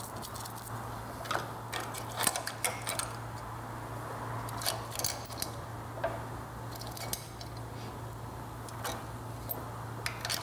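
Small metal carburetor parts clinking and scraping at irregular moments as they are handled and cleaned, over a low steady hum.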